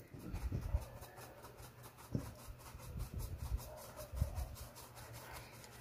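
Bread flour sifted through a stainless steel fine-mesh strainer over a metal bowl: a hand rubs the flour through the mesh and the sieve is shaken, giving a faint rubbing with soft, irregular bumps.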